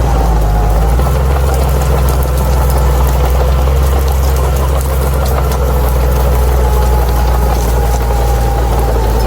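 Bulldozer's diesel engine running steadily under light load, with a faint steady whine above the engine note.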